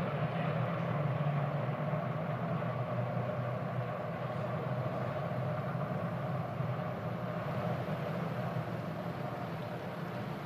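A field of IndyCar racing cars lapping slowly in a tight formation at reduced speed: a steady, even drone of many engines with no single car passing.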